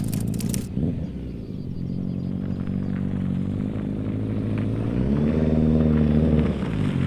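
Air-cooled inline-four engine of a Honda CB1100-based custom motorcycle running as it approaches, growing louder, with a brief rise and fall in revs about five seconds in. A rapid run of sharp clicks sounds in the first second.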